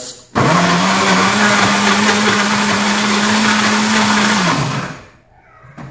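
Countertop blender switched on, its motor spinning up within the first second to a steady high speed as it blends a thick mix of eggs, butter and oils, then switched off about four and a half seconds in and winding down.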